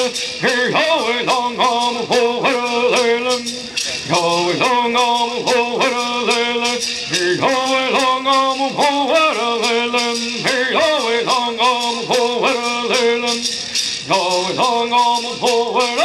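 Men's group singing an Iipay-Tipay (Kumeyaay) bird song in unison, each shaking a gourd rattle in a steady beat of about three shakes a second.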